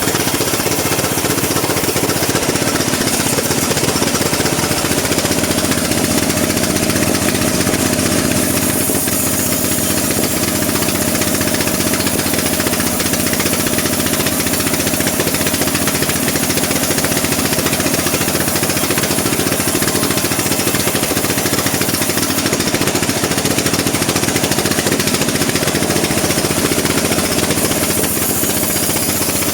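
Sawmill bandsaw running steadily while sawing teak wood: a loud, even mechanical drone.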